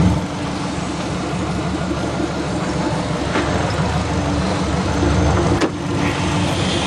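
Subaru Legacy's 2.5-litre boxer engine idling steadily, heard from inside the car, with a faint click about five and a half seconds in.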